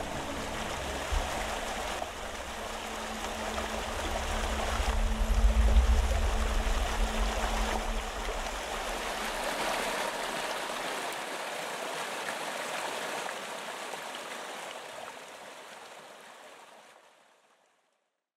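Water pouring over a stacked-stone waterfall into a swimming pool, a steady rushing and splashing with a low rumble under it in the first half. It fades out near the end.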